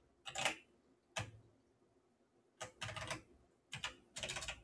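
Computer keyboard typing: short, irregular clusters of keystrokes with pauses between them, as text is edited in a terminal editor.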